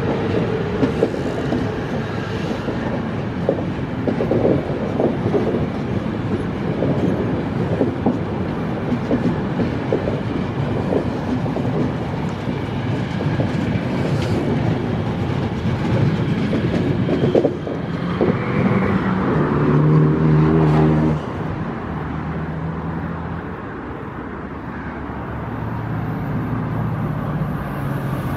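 Passenger coaches of a Regio Express train rolling past on the electrified main line, the wheels clattering over rail joints. About two-thirds through, a loud low steady tone sounds for a few seconds; near the end the rolling dies down and a low hum grows as the next train approaches.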